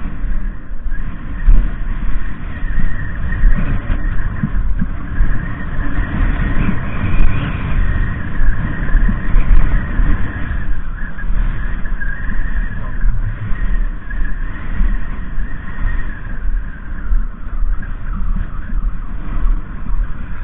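Wind buffeting the camera's microphone: a continuous low rumble that rises and falls irregularly, with a hiss above it.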